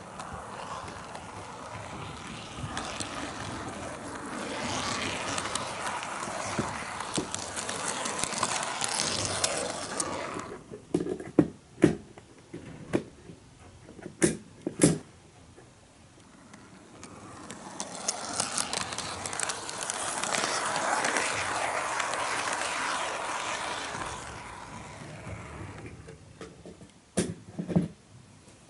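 HO-gauge model train running on Kato Unitrack, heard from a camera car riding on the train: a steady rolling rattle of the wheels that swells and fades twice. Sharp clicks come in two clusters, midway and near the end, as the wheels cross the yard turnouts.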